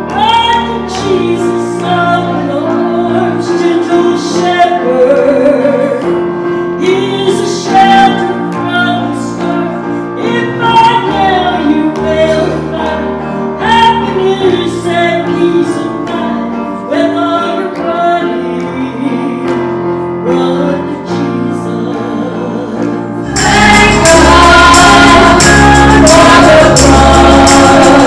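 Gospel song: a woman singing with electronic keyboard accompaniment. About 23 seconds in it changes abruptly to a louder, fuller gospel number with several voices singing together.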